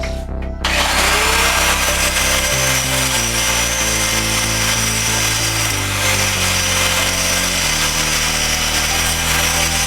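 An electric power tool starts suddenly about half a second in, spinning up with a rising whine, then runs steadily with a high, hissing whine, over background music with a steady chord pattern.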